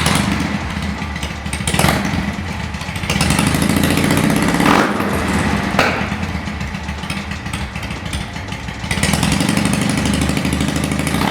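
1978 BMW R80/7's air-cooled flat-twin engine running through a newly fitted Mad Exhaust aftermarket exhaust, its note rising and falling as the throttle is opened and closed.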